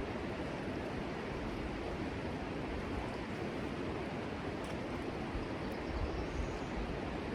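Steady rush of river water running over rapids.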